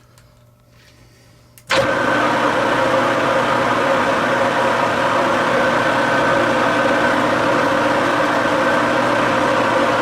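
Metal lathe switched on a little under two seconds in, then running steadily with a constant geared whine.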